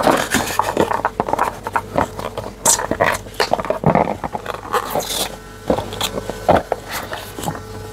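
Hands handling packaging while unpacking a box: irregular rustling and crinkling with small clicks and knocks.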